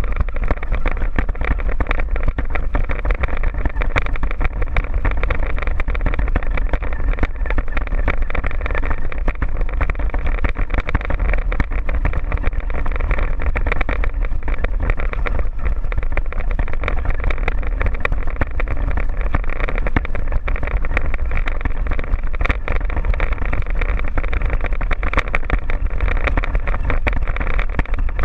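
Motor and gears of a radio-controlled scale truck running steadily over stony ground, heard from a camera mounted on the truck, with many small clicks and crunches from stones under the tyres.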